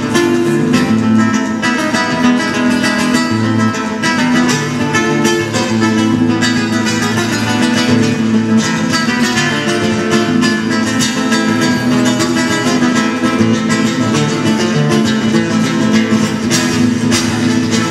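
Acoustic guitar playing continuous flamenco-style music.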